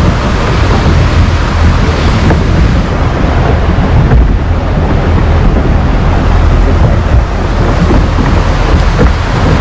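Steady wind rumbling on the microphone on the deck of a moving boat, over the rush of water along the hull through ice-strewn sea.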